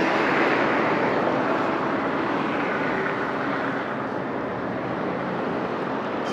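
Road traffic noise: the steady rush of a passing vehicle that slowly fades over several seconds.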